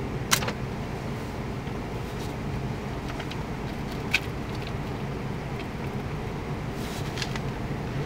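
Hunting catapult shot fired from a car window: a sharp snap of the released bands about a third of a second in, with another sharp click about four seconds in, over the steady low rumble of the car's engine idling.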